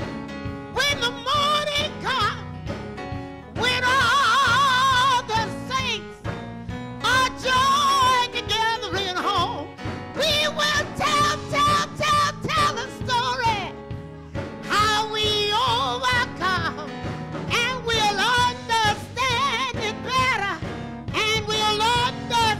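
A woman singing a gospel song solo through a microphone and PA, her voice wavering with a wide vibrato, over steady instrumental accompaniment.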